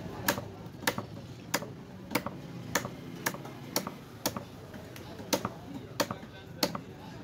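A heavy fish-cutting knife chopping a fish loin into chunks, each stroke ending in a sharp knock on the wooden log chopping block. The strokes come in a steady rhythm, about a dozen of them at roughly two a second.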